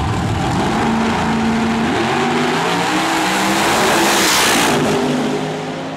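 Drag race cars launching at full throttle and pulling away down the strip, engine pitch climbing and stepping through gear changes. The loudest point comes as a car passes close by about four seconds in, and the sound fades off after that.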